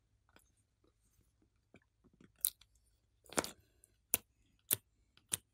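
Sharp, sticky clicks and pops as fingers pull soft clay out of a plastic palette well. They start about halfway in and come roughly every half second, after a nearly quiet start with a few faint ticks.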